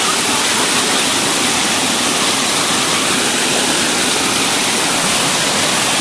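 Small waterfall cascading over rocks, heard close up: a steady, loud rush of water.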